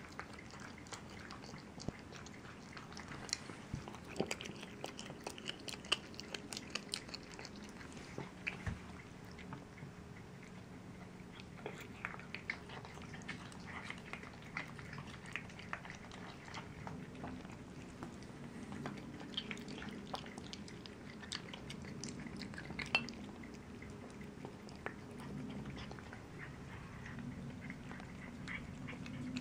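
Cats chewing raw chicken legs and thighs with the bone and skin on: irregular wet clicks and crunches of teeth on meat and bone.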